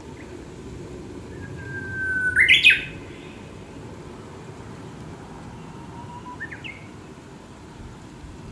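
Japanese bush warbler singing one phrase, its 'hō-hokekyo': a long steady whistle followed by a quick flourish of higher notes, loudest about two and a half seconds in. Fainter short bird notes come near the end over a steady low outdoor hiss.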